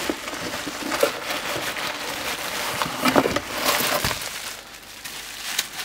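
A cardboard shipping box being opened and handled, with packaging rustling and crinkling and a few sharper crackles. The loudest crackles come about a second in and three seconds in, and the handling grows quieter near the end.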